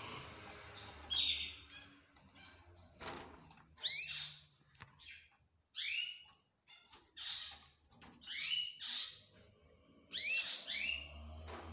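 Mixed cage birds chirping: short, sharp calls that sweep downward in pitch, coming irregularly about once a second and bunching in quick pairs near the end, over a low steady hum.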